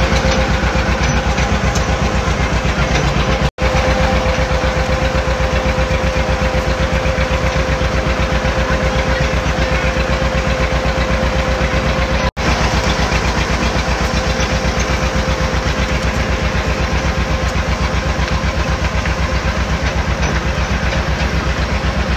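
Engine running steadily at an even speed, its firing pulses regular, with a steady whine over it. The sound drops out for an instant twice.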